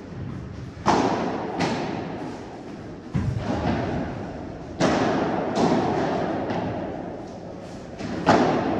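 A padel rally: the ball is struck by solid padel rackets about six times at irregular intervals, each hit a sharp pop followed by a long echo in a large indoor hall. The loudest hits come about five seconds in and near the end.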